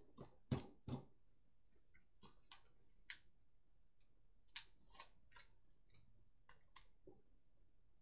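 Scattered light clicks and taps, about a dozen in irregular clusters, from hands handling plastic toy-stadium parts and a sticker sheet.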